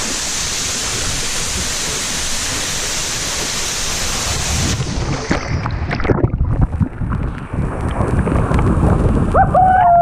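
Waterfall: the steady, loud hiss of falling water. About five seconds in, the sound turns abruptly muffled to a churning low underwater rumble as the camera goes beneath the surface of the plunge pool, with a brief falling tone near the end.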